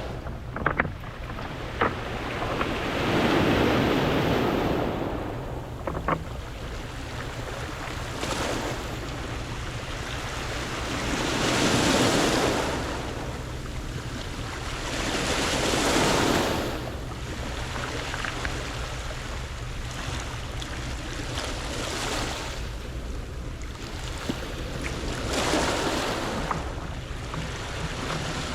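Sea waves washing onto a round-pebble beach, a steady wash broken by four louder surges as waves come in, with a low rumble beneath.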